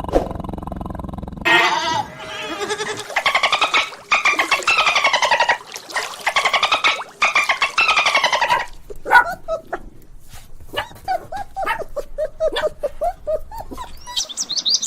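Animal calls: several long, wavering calls that fall in pitch, followed from about nine seconds in by a run of short, lower calls.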